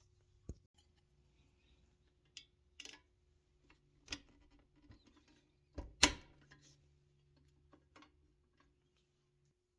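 Light clicks, taps and scrapes of painted pressed-steel toy truck bed parts being handled and fitted together, with a sharper metal clack about six seconds in.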